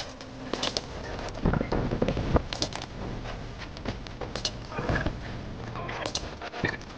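Small-bore .22 biathlon rifle fired from the prone position: sharp cracks every second or two, some in quick pairs, as the athlete works through a shooting series. Low muffled thumps come about two seconds in.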